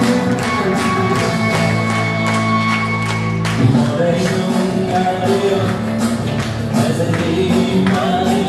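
Dance music with a steady beat, held chords giving way to a new passage a little over three and a half seconds in.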